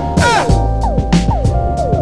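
Background music: an electronic beat with sustained notes and repeated falling pitch slides.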